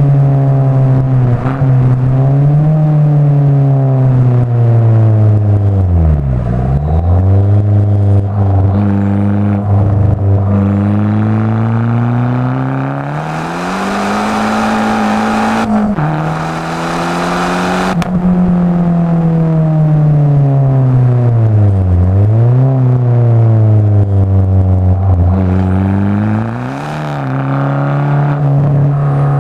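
Abarth 500 esseesse's turbocharged 1.4-litre four-cylinder, fitted with a Garrett 1446 turbo and an aftermarket exhaust, being driven hard: the revs climb and drop again and again through gear changes, with a burst of hiss over the engine note for a few seconds in the middle.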